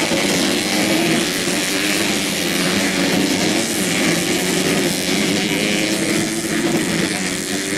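Several modified 125cc four-stroke underbone racing motorcycles revving around the track, their engines overlapping in a steady, wavering drone.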